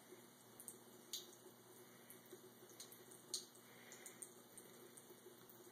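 Faint trickle of a thin stream of tap water falling into a bathroom sink, with scattered soft clicks of a cat lapping at the stream.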